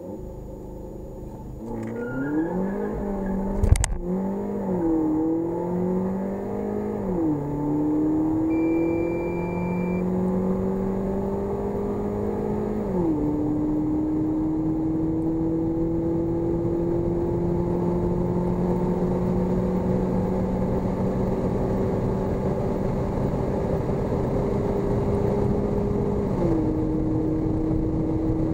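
The 2018 VW Polo GTI's 2.0 TSI turbocharged four-cylinder engine under full-throttle launch-control acceleration, heard from inside the cabin. It is held at launch revs for a moment, then pulls up through the gears, the DSG gearbox upshifting four times, each shift a sudden drop in pitch, with the gaps between shifts growing longer. There is a sharp knock at the first upshift, about four seconds in.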